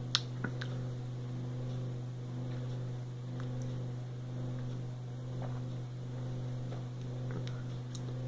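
A steady low electrical hum, with a sharp click just after the start and a few faint clicks and swallowing sounds from a man drinking soda from a bottle.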